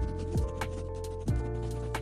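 Background music with a steady beat: thudding kicks and crisp clicks over held chords and bass.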